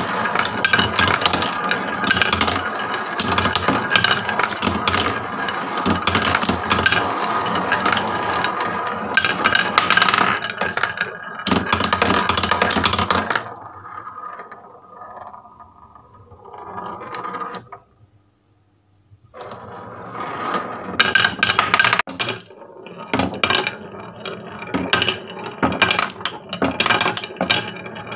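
Many marbles rolling and clattering down a wooden HABA marble run, a dense stream of clicks and rattles. About halfway through the clatter thins out, stops briefly, then picks up again.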